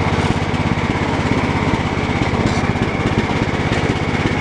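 Cub Cadet 1018 lawn tractor engine running steadily, an even fast chugging with a steady high whine over it.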